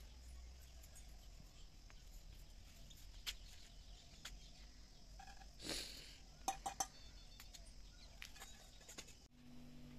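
Quiet outdoor ambience with faint scattered ticks, a brief rustle about halfway through and three sharp clicks soon after. Near the end a steady low hum takes over.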